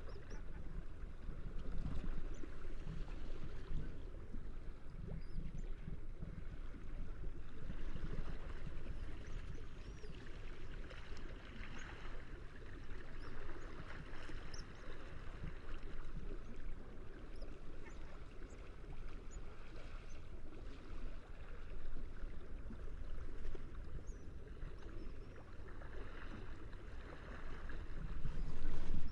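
Sea waves washing and surging against the shore, a continuous swelling rush with low rumble. Faint, brief seagull cries sound now and then.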